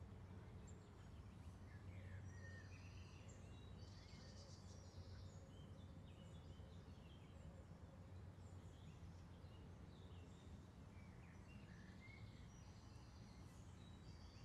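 Faint birds chirping and calling in short, scattered notes, over a low steady background hum.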